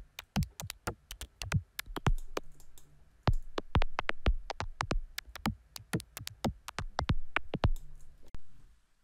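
Electronic percussion pattern run through Ableton Live's Vocoder and OTT multiband compressor: vocoded percussion, sharp hits in an uneven rhythm, many dropping quickly in pitch. It stops shortly before the end.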